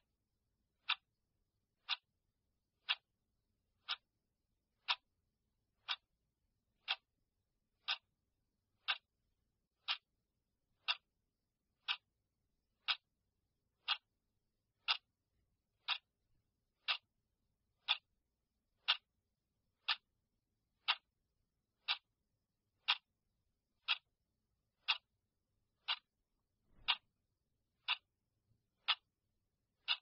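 Clock ticking steadily, one short sharp tick every second.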